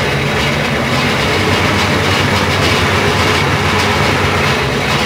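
Powered sugarcane roller mill running as cane stalks are fed through its rollers and crushed to press out the juice (garapa). It makes a steady mechanical noise with a low hum.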